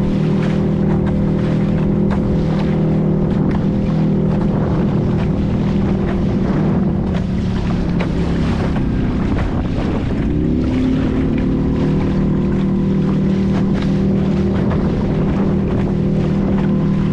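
A boat's engine running steadily, with wind buffeting the microphone; its pitch wavers and then settles again about ten seconds in.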